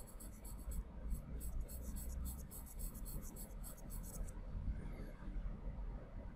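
Sharp charcoal pencil scratching on layout paper in quick short hatching strokes, about six a second, stopping a little over four seconds in.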